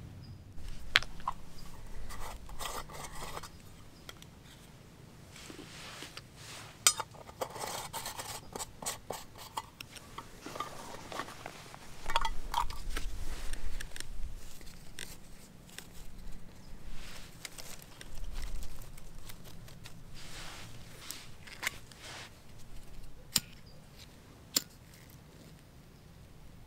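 Camp gear being handled: irregular scraping, rustling and clinking, broken by a few sharp clicks.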